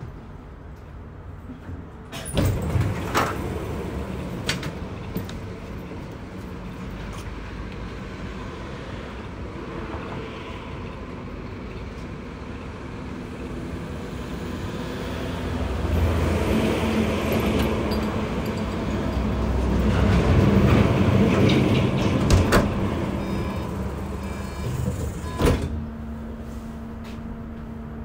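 Bombardier Flexity Berlin tram heard from inside, running with rumbling noise and scattered sharp clicks and knocks. The noise grows louder about halfway through and then eases off. A clunk near the end is followed by a steady hum.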